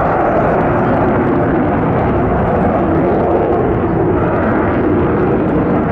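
Jet engine noise from a twin-engine Sukhoi Flanker-family fighter flying an aerobatic display: a loud, steady roar, mostly low and mid-pitched.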